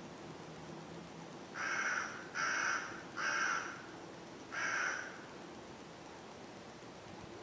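A crow cawing four times: three caws in quick succession, then a fourth after a short pause.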